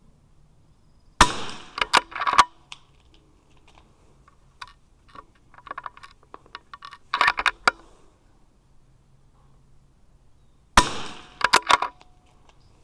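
Two .22 LR rifle shots, about ten seconds apart, each followed within a second by a quick run of metallic clicks as the bolt is worked. A cluster of clicks and small rattles falls between the shots.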